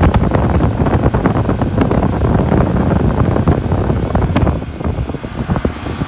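Heavy wind buffeting the microphone, a low rumble with crackling, over a running walk-in cooler condensing unit. The buffeting eases about four and a half seconds in.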